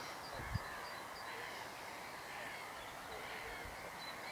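Birds calling over steady outdoor background noise, with a brief low bump about half a second in.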